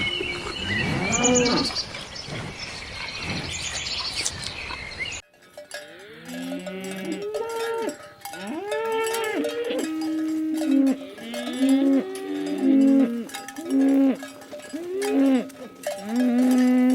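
Cows mooing again and again, several calling over one another in long, steady lowing calls, with cowbells clanking. About five seconds in, the sound cuts abruptly from a noisier stretch to a cleaner one.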